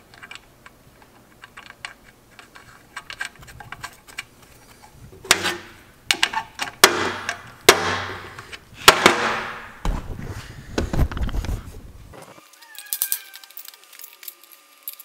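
Hand ratchet clicking in quick runs as nuts are run down onto the adapter-plate studs holding the transmission to the engine, followed from about five seconds in by several loud metal clanks. Near the end it drops to a quieter stretch with a faint steady tone.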